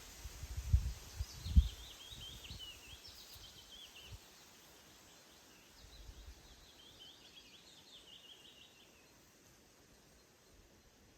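A songbird singing two short phrases of quick, high chirping notes a couple of seconds apart, over a steady outdoor hiss. Two brief low thumps near the start are the loudest sounds.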